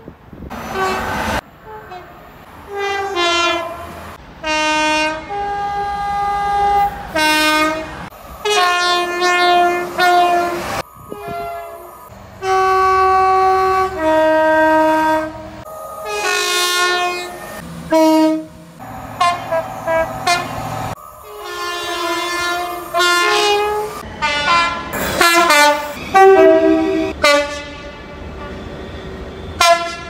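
A rapid series of British train horns from several different trains, mostly two-tone blasts that alternate a higher and a lower note, with some single held notes. The blasts come in short clips that are cut off abruptly one after another.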